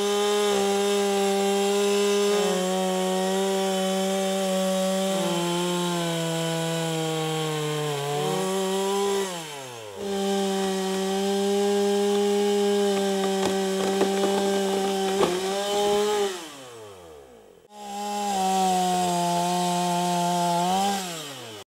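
Oleo-Mac two-stroke petrol chainsaw cutting wood at high revs, its pitch sagging in steps as the chain bites. Three times the engine note falls steeply away as the throttle is released, and each time the sound breaks off abruptly and starts again.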